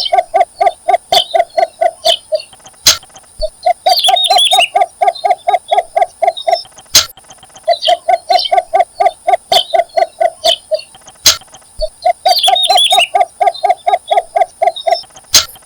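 Yellow bittern calling: runs of rapid, evenly spaced clucking notes, about six a second, each run lasting two to three seconds and separated by short pauses. Bursts of higher squeaky chirps come twice.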